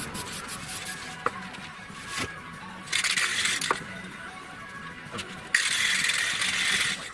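Aerosol spray paint can (Dulux Spraypak enamel) spraying in two hissing bursts, one of about a second and then a longer one of about a second and a half, with a few light clicks between them.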